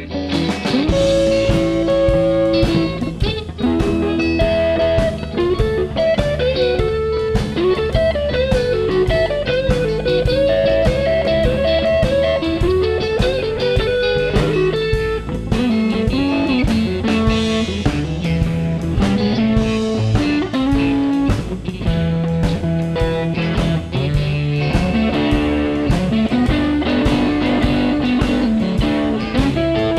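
Live blues band playing an instrumental passage: electric guitar lead lines over a rhythm guitar, with a steady beat.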